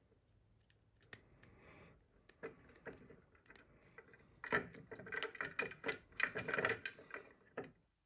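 Small metallic clicks and ticks of treble hooks and split rings against the jaws of steel fishing pliers as the hooks are fitted back onto a fishing lure. The clicks are scattered at first and come thick and fast from about halfway in.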